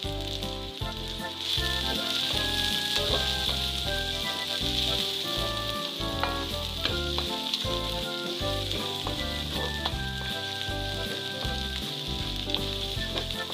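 Sliced red onion and chopped garlic sizzling steadily in hot oil in a wok, stirred now and then with a few sharp clicks of the utensil against the pan.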